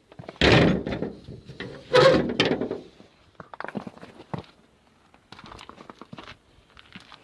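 Two loud thuds about a second and a half apart, each with a short rumbling tail, followed by lighter scattered knocks and clicks.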